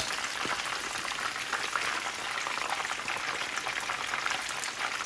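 Hot oil bubbling and crackling steadily around chicken thigh pieces deep-frying in a pan, the pieces done and crisp-skinned. A single sharp tap comes right at the start.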